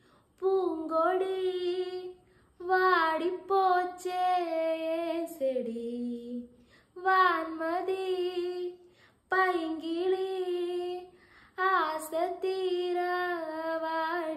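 A woman singing a Tamil song without accompaniment, in phrases of two to three seconds with short breaths between, holding long notes.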